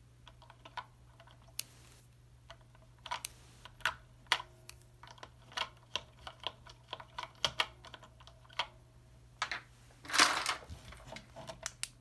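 Plastic clicks and taps of a Futaba key switch being pressed and worked into its mounting in a Commodore PET keyboard. The clicks come irregularly, with a louder scraping snap about ten seconds in as the switch seats.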